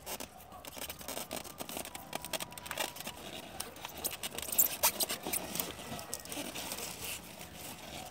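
Turnip leaves rustling and crackling, with soil scraped by hand as turnips are pulled up: an irregular run of rustles and scrapes, loudest a little past the middle.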